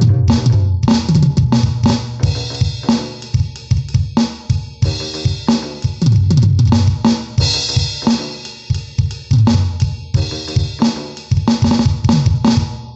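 Drum kit playing a fast, busy pattern of bass drum, snare and cymbal hits, which stops suddenly at the end.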